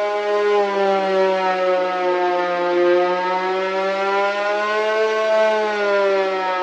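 A single long note from a software string instrument in GarageBand, held steadily with its pitch wavering slightly.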